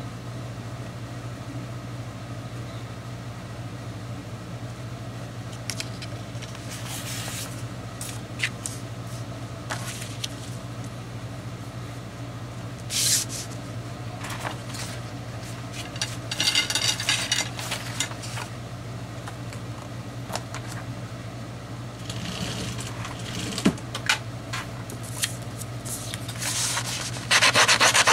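Paper and cardstock being handled on a cutting mat: scattered rustles, slides and light taps over a steady low hum. Near the end comes a loud rasping rub as adhesive is run along the back of a sheet of kraft cardstock.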